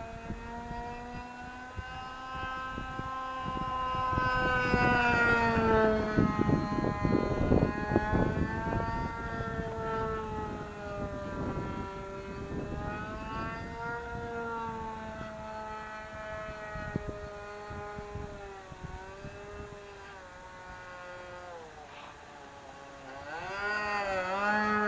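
Vintage radio-controlled model plane's small engine buzzing in flight, running well on a freshly changed plug. Its pitch drifts up and down as the plane circles, it is loudest about four to eight seconds in, and the pitch wavers quickly near the end.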